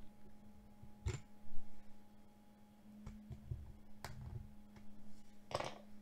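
A few faint, sharp clicks and taps from a small screwdriver and screw at an open laptop's M.2 SSD slot, with a brief rustle near the end, over a low steady hum.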